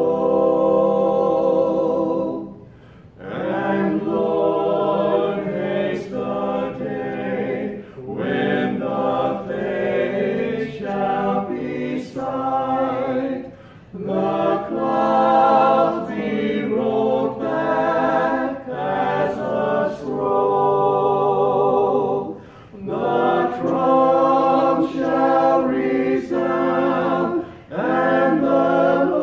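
A small mixed group of five men's and women's voices singing a hymn unaccompanied, in long phrases separated by short pauses for breath.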